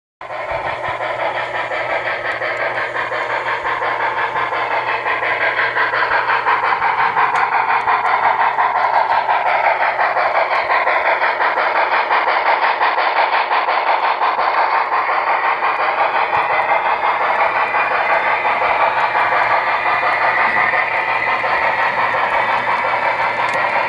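Model train, a Northern Pacific A-3 4-8-4 steam locomotive model hauling freight cars, running past on the layout track with a steady rolling and motor noise. It grows louder over the first several seconds as the locomotive comes close, then holds steady while the cars pass.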